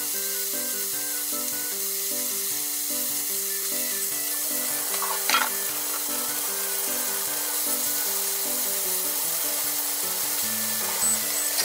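Slices of pork jowl sizzling steadily as they fry in a nonstick frying pan, with a brief clatter about halfway through and cooking chopsticks clicking against the pan near the end.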